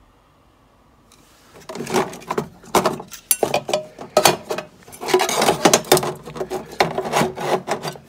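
Stepper motor drivers being handled and slid about on the floor of a sheet-metal enclosure, scraping and knocking irregularly from about a second and a half in.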